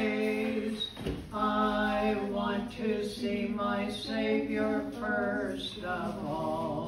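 An elderly man and woman singing a hymn together unaccompanied, in long held notes, with a short breath about a second in.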